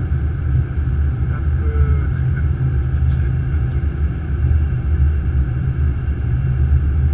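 Flight-deck noise of an Airbus A330-200 descending on approach: a loud, steady low rumble.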